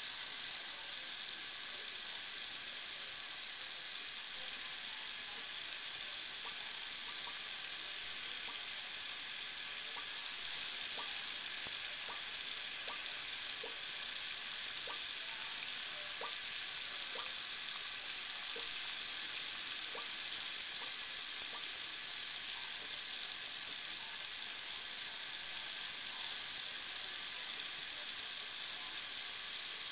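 Bathroom faucet running a thin stream into the sink basin: a steady hiss, with faint short plinks of water scattered through the middle.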